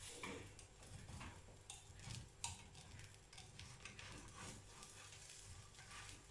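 Pancake frying gently in a non-stick pan with a faint sizzle, while a spatula scrapes and taps against the pan several times, working under the pancake.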